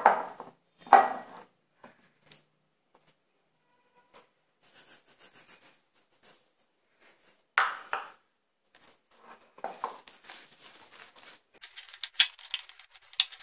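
Hand mixing thick urad dal and semolina batter in a glass bowl: small scraping and squishing sounds with the bowl knocking and clinking. There is a louder knock about halfway through as more semolina is tipped in, then a quick run of small clicks and rubs near the end.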